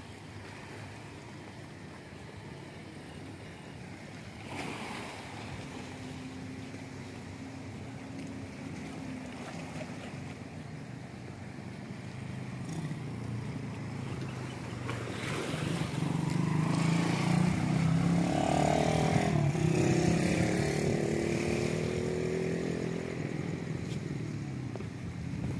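A motor vehicle engine running over outdoor noise, growing louder through the second half with its pitch rising and falling, then easing off near the end.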